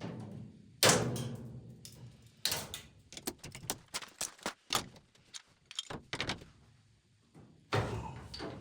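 Thuds and knocks from hands-on work on a furnace: a loud thud about a second in that rings briefly, a run of sharp knocks and clicks, and another heavy thud near the end.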